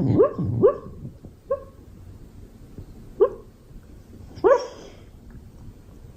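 Beagle barking: a quick run of barks in the first second, a short one about a second and a half in, then single barks about three and four and a half seconds in, each dropping in pitch.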